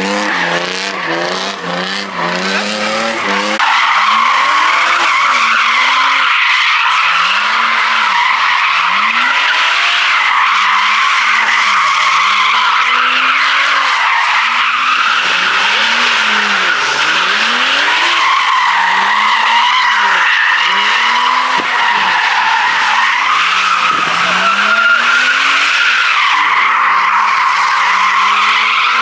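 A car's tyres squealing in a long, continuous skid while the engine revs rise and fall every second or two. For the first few seconds, before the squeal sets in, the engine is revved in quick blips.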